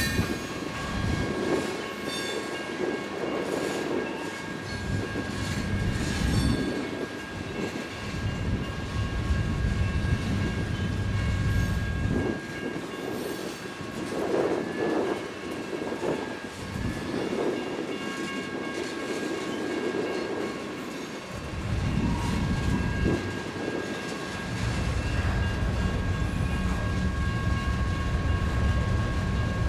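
Freight train rolling past: railcar wheels rumbling and clattering on the rails in uneven waves, with a thin steady squeal from the wheels held throughout.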